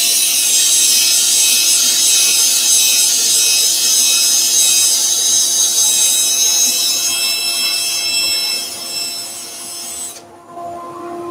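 Cordless drill spinning a 100-grit foam-backed sanding disc against the inside of a sycamore platter turning on a lathe: a loud, steady, high abrasive hiss. It stops abruptly about ten seconds in, leaving the lathe's steady hum.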